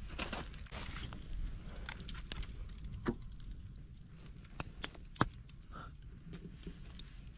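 Scattered knocks and crunches, with two sharper clicks about three and five seconds in, over a low steady rumble.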